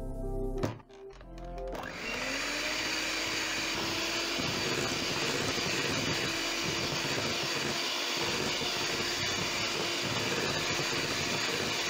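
Electric hand mixer switched on about two seconds in, its motor spinning up with a short rising whine and then running steadily as the beaters whip buttercream in a glass bowl. A light clink comes just before it starts.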